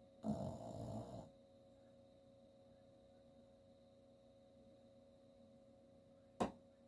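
A sleeping chihuahua–Jack Russell terrier mix gives one snore, about a second long, near the start; after it only a faint steady hum remains, broken by a single sharp click near the end.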